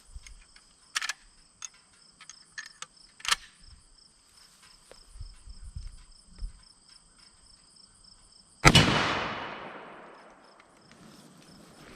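A single rifle shot from a Henry .45-70 lever-action firing a 325-grain Hornady LEVERevolution round, with a long echo that fades over about two seconds. A few light clicks come first.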